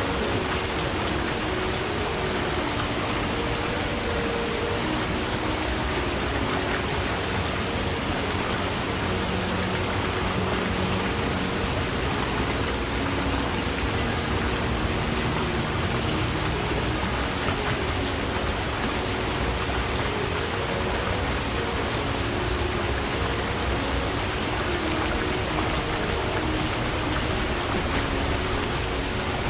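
Forest stream flowing steadily: an even rush of water with low burbling running through it.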